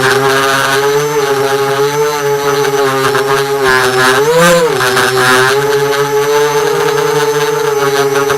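FPV quadcopter's brushless motors whining at a steady pitch, with one short throttle punch about halfway through that sends the whine up and back down.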